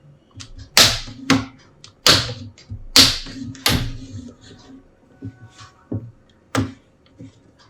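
Plastic clips of a laptop screen bezel snapping loose as the bezel is pried off with a plastic prying tool: a series of about six sharp cracks, most of them in the first four seconds, with lighter ticks between.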